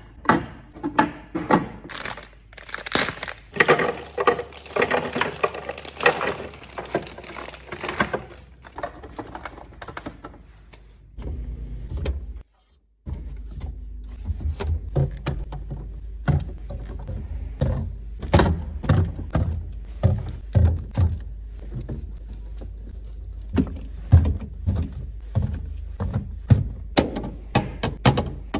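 Items being taken out and set down while a fridge is restocked: repeated knocks and clunks of objects placed on shelves. A denser stretch of rustling and handling comes a few seconds in.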